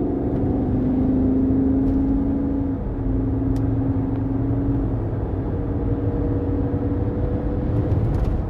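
Drivetrain hum from a GMC Denali on the move: a steady droning tone over the road rumble, dipping briefly in pitch about three seconds in. The hum persists even after the differential was replaced, and the transfer case or the transmission is suspected.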